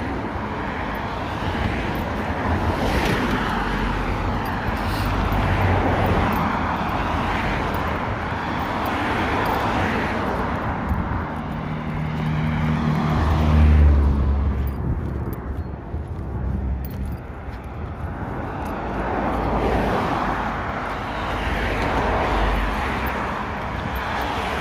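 Road traffic going by, several vehicles swelling and fading one after another, the loudest with a low engine hum about 13 to 14 seconds in. Wind rumbles on the microphone.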